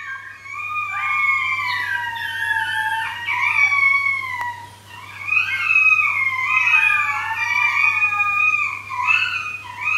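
Shetland Sheepdog (sheltie) puppies, 13 weeks old, howling together: several high, wavering howls overlapping and gliding up and down, with a short lull about halfway through. The owner takes it for the puppies calling for their pack. A faint steady low hum lies underneath.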